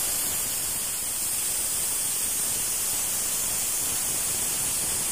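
Stovetop pressure cooker letting off steam through its weighted vent: a loud, steady hiss that cuts off suddenly near the end. It is the cooker's whistle, the sign that it has come up to full pressure.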